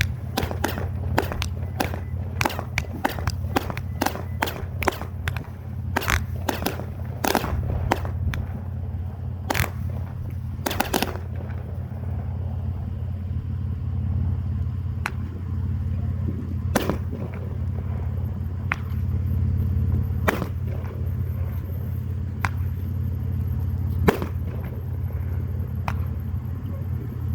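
Fireworks going off: a quick series of sharp bangs and cracks for the first ten seconds or so, thinning to occasional single reports, over a steady low rumble.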